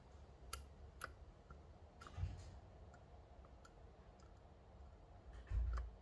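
Faint, sparse metallic clicks of a flat hook pick working the outer pins inside a MUL-T-LOCK Classic pin-in-pin dimple lock cylinder, with a low thump a little after two seconds and a stronger one near the end.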